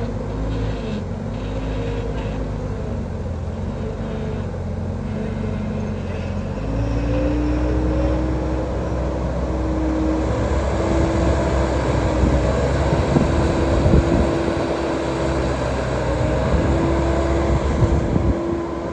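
Kubota DC70 combine harvester's diesel engine running, its pitch wavering at first, then rising about six seconds in to a steady higher speed, with irregular knocks and rattles in the second half.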